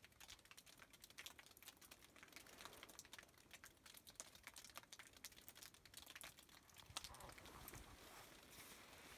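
Near silence with faint, irregular clicking and crinkling, the handling noise of a handheld camera being carried and turned.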